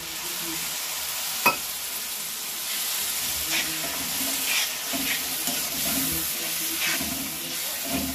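Grated ginger and garlic sizzling in hot mustard oil in a kadhai just after a splash of water, while a slotted steel spoon stirs and scrapes the pan. One sharp clink of the spoon on the pan comes about a second and a half in, and from about three seconds on the spoon scrapes the pan in repeated strokes.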